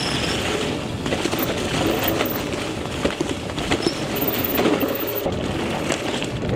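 Electric mountain bike rolling along a leaf-covered dirt trail: tyres crunching through dry leaves and dirt, with many small knocks and rattles from the bike over bumps.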